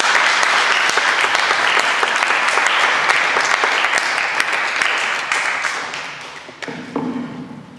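Audience applauding, a dense patter of many hands clapping that thins out and dies away over the last couple of seconds.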